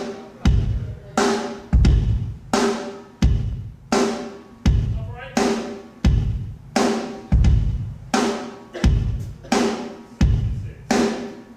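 Miked kick drum and snare drum played alternately in a slow, even beat for a sound check, about one hit every 0.7 seconds. The kick is a deep thud; the snare is a sharp crack with a ringing tone after each hit.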